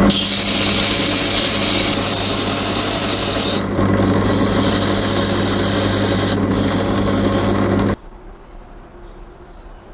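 Electric power tool running with a steady motor hum while it abrades a rusty stapler's metal. It cuts off suddenly about eight seconds in, leaving a much quieter rubbing sound.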